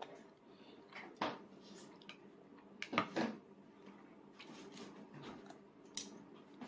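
A few soft clicks and taps of plastic training chopsticks against a plastic plate as a toddler picks up food, over quiet room tone.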